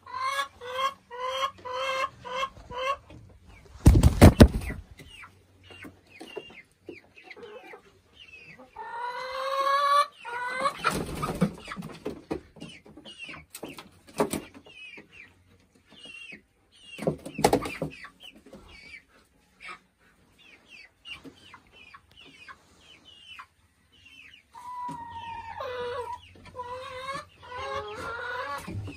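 Boris Brown hens and young pullets clucking and calling, with a quick run of repeated clucks at the start and a rising call about nine seconds in. A loud knock about four seconds in is the loudest sound, with smaller knocks later.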